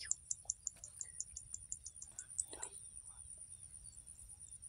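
Quiet rural ambience: a steady high-pitched buzz with quick regular ticks, small bird chirps, and a brief low whisper about two and a half seconds in.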